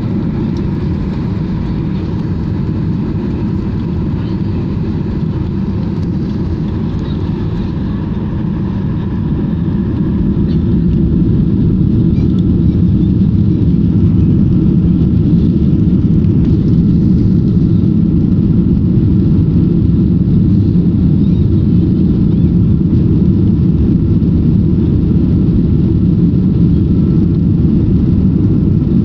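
Cabin noise of a Ryanair Boeing 737-800 heard from a seat over the wing during takeoff: a steady low rumble that grows louder about ten seconds in as the engines spool up to takeoff thrust, then holds steady through the takeoff roll.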